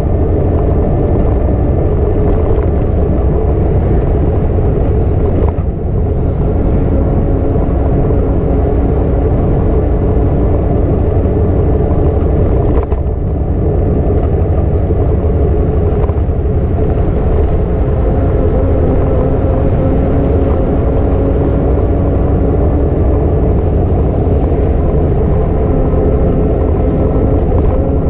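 Wind and rolling noise from riding along a bicycle path: a steady, loud low rumble, with a faint steady hum that comes through more clearly in the second half.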